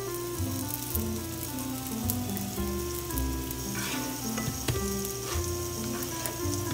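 Hotteok frying in oil in a nonstick frying pan: a steady sizzle, with a few light knocks of a spatula against the pan around the middle. Background music plays over it.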